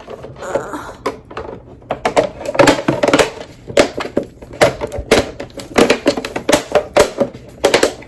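Hard plastic clicking and knocking as clip-on orange colour filter pieces are fitted onto a ring light, many irregular sharp clicks throughout.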